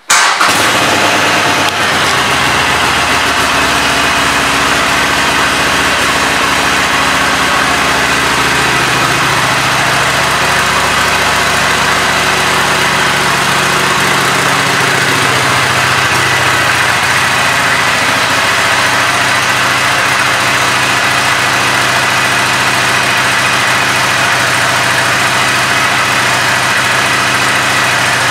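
2017 Harley-Davidson Superlow's 883 cc air-cooled V-twin starting right at the beginning, then idling steadily.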